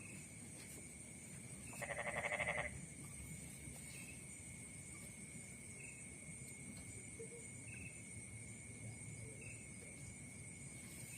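A steady high trilling of night insects in a rice paddy. About two seconds in, one short, rapidly pulsed, bleat-like animal call.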